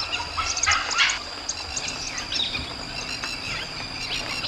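Dholes (Indian wild dogs) giving many short, high-pitched squeaks and chirps, some falling in pitch, over a steady high insect drone.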